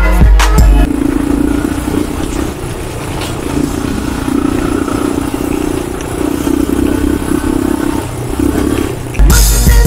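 Quad bike (ATV) engine running steadily under way over rough desert ground, its note pulsing slightly. Loud hip-hop music plays for the first moment and cuts back in near the end.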